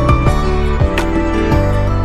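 Background music: a calm, new-age style track with sustained notes over a steady beat.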